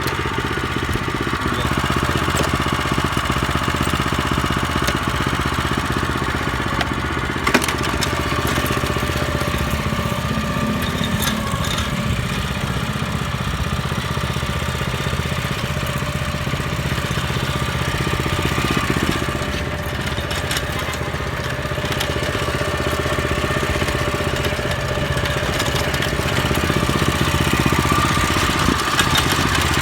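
Small engine of a used Japanese walk-behind rotary tiller running steadily, with one sharp knock about seven and a half seconds in.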